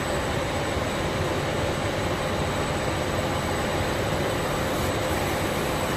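Rotary-arm pallet stretch wrapper running, its arm circling the pallet: a steady machine noise with a constant mid-pitched hum.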